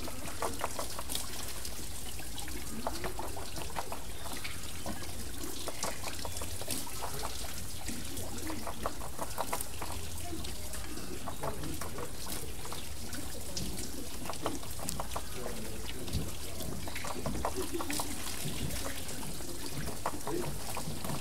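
Water spilling and splashing off a turning water wheel: a steady trickling and pouring with many small, quick splashes.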